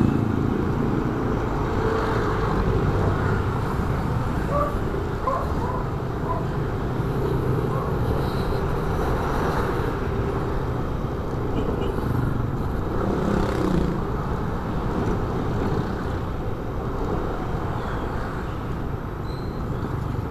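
Motorcycle engine running while riding steadily through light street traffic, mixed with steady road and wind noise.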